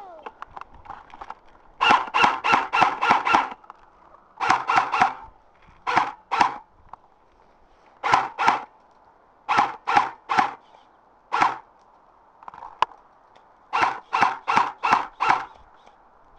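Boots squeaking and crunching on cold, packed snow: quick runs of footsteps, from one or two up to about six steps at a time, with short pauses between.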